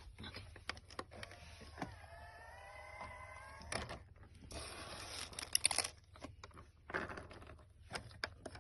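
Cat coughing and sneezing. A drawn-out pitched sound of about two seconds comes first, then a noisy burst of about a second and a half with several sharp, loud peaks, and scattered short clicks.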